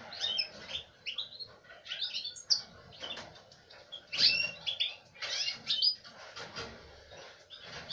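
Domestic canaries chirping and calling from their cages: many short, quick chirps and curved call notes, overlapping, several a second.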